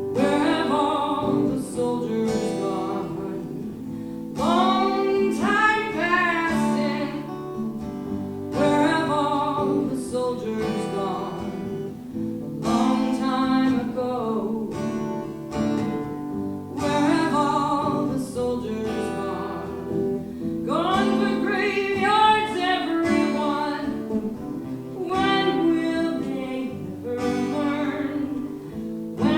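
An acoustic guitar strummed while a voice sings a song in phrases.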